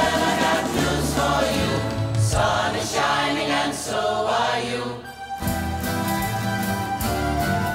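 Live song: three women's voices singing together over a group of strummed acoustic guitars. The music drops away briefly about five seconds in, then the guitars carry on.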